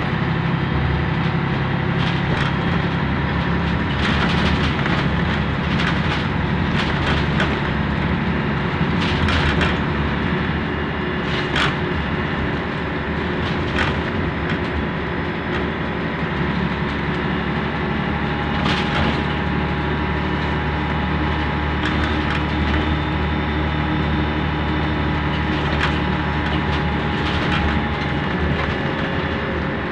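Scania N113DRB double-decker bus under way, heard from the upper deck: its 11-litre six-cylinder diesel runs steadily while the body, windows and fittings rattle and creak with many short clicks. The engine note falls away for a few seconds midway, then picks up again.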